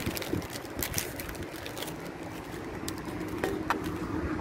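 City street background: a steady hum of distant traffic with a few short sharp clicks scattered through it.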